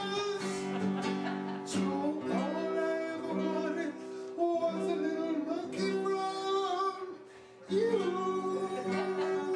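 A man singing a song to guitar accompaniment, with a short quieter break about seven seconds in.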